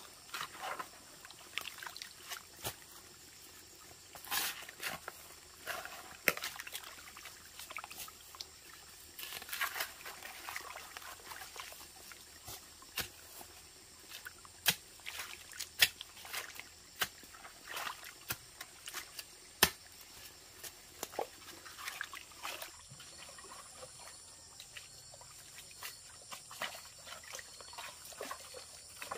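Irregular sharp knocks and short scraping noises, spaced unevenly, with a faint steady hiss beneath.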